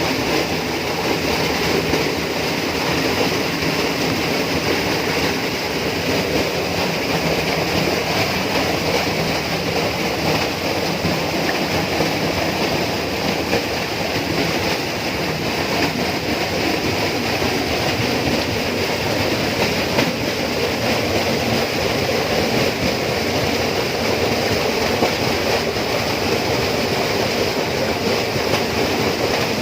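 Steady rainforest ambience: a dense, even wash of sound that never breaks or changes.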